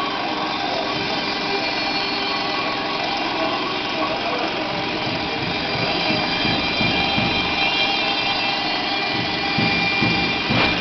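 CNC router spindle running at speed while its fine engraving bit mills the copper layer off a printed circuit board: a steady high whine over a noisy cutting hiss. Low rhythmic thumps come in over the second half.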